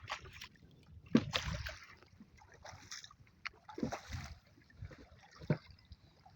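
Water sloshing and splashing irregularly against a small boat, with short knocks and low thumps on the hull.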